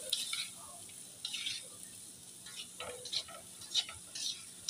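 Spatula scraping and tossing chopped carrots and cabbage around a steel wok in quick, irregular strokes, about two a second, over the sizzle of stir-frying.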